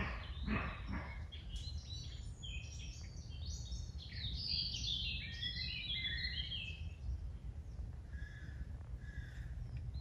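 A couple of short hoarse barks from a roe deer at the very start. Then songbirds sing a fast, dense run of high notes for several seconds, with a few lower calls near the end, over a low rumble of wind on the microphone.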